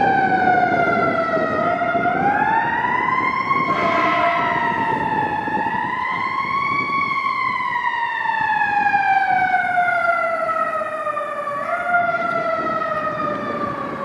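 Fire engine siren, from a 2009 KME Predator pumper, sounding a slow wail: the pitch sweeps down, climbs back in two long rises, then falls in a long glide with a short jump up near the end. The truck's engine and road noise rumble underneath, and it all fades toward the end as the truck pulls away.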